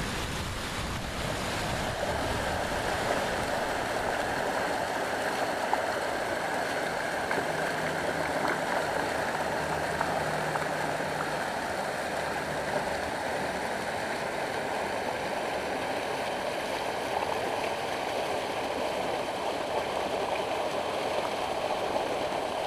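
River water rushing steadily over a low concrete weir.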